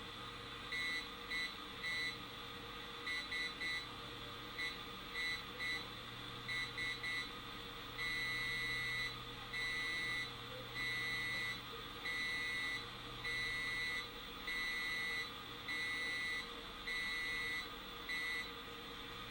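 Morse-code beeps coming over an AM radio tuned between stations, on top of steady static. The beeps are a high buzzing tone picked up from negative ion generators and keyed on and off by hand through water. First come groups of quick short dits, then from about eight seconds in a run of long dashes, each about a second.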